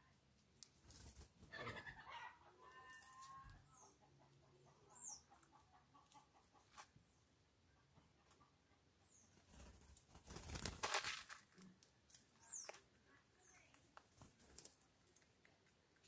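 Quiet yard sound with a hen clucking early on, a few short high falling bird chirps, and a brief burst of wing flapping about two-thirds of the way through as a ground dove lands at the seed feeder.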